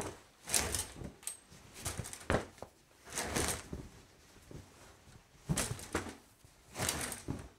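Sheets of paper rustling as they are handled, in short irregular bursts.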